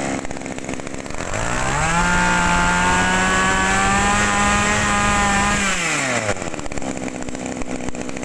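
Zenoah two-stroke brush-cutter engine idling, then revved up about a second in. It holds at high speed for about four seconds and drops back to idle near the end. It revs up quickly.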